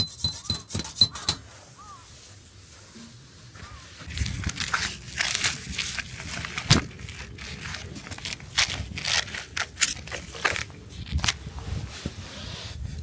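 Close handling sounds: a quick run of clicks near the start, then, after a lull, irregular crinkling and rustling with scattered clicks and taps.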